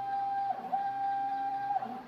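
Stepper motors of a CNC writing machine whining at one steady pitch as the head travels. The whine dips and swoops briefly twice as the machine slows and changes direction, then returns to the same pitch.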